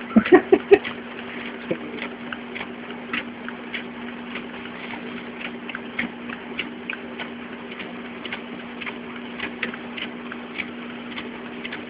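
Fujitsu fi-6800 high-speed document scanner running: a steady motor hum with a quick, even run of clicks, about two or three a second, as sheets feed through.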